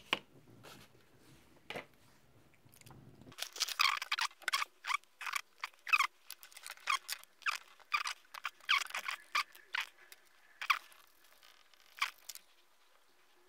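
Small metal tin of enamel paint being handled: a run of quick, irregular clicks and scrapes of metal, several a second, starting a few seconds in and stopping shortly before the end. A couple of single clicks come before the run.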